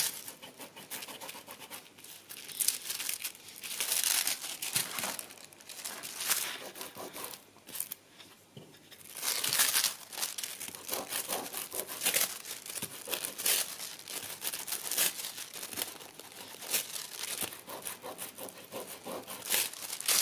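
Crumpled metallic transfer foil crinkling as it is pressed and rubbed over paper in irregular bursts, transferring gold and silver onto the glued areas of the painting.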